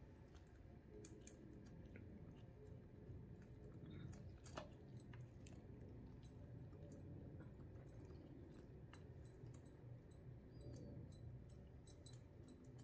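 Near silence: faint room tone with scattered soft clicks and ticks.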